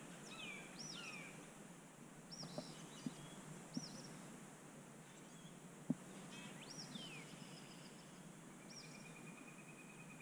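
Faint bird calls over a quiet background: short high chirps about once a second, a few falling calls, and a level trill near the end. A few faint clicks, the sharpest about six seconds in.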